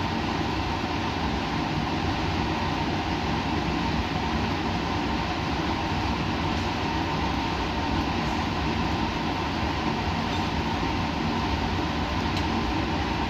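Laboratory equipment running steadily: a constant rushing drone with a few fixed hum tones that do not change.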